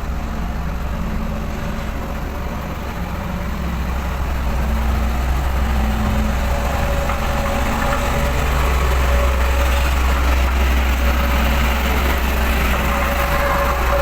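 Dynapac road roller's diesel engine running steadily with a deep low hum, growing a little louder about four seconds in.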